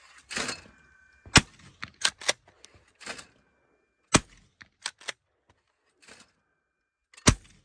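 Stoeger P350 12-gauge pump-action shotgun fired three times, about three seconds apart, with the pump slide racked back and forward between shots. The shotgun fires each time without a misfire, its bolt freshly cleaned to cure earlier light strikes.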